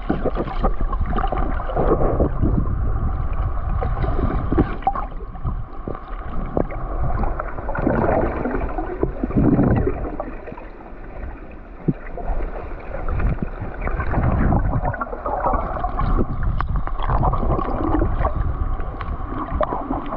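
Sea water sloshing and gurgling against the hull of a small boat, with wind rumbling on the microphone and occasional light knocks.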